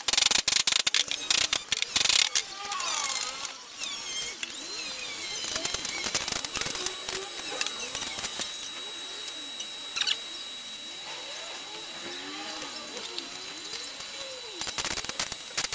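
Hammer blows on a steel trailer ball coupler clamped in a bench vise: a rapid, uneven series of metal strikes for about the first four seconds. After that a steady high-pitched whine with a constant hiss runs on, with a single click partway through and a few knocks near the end.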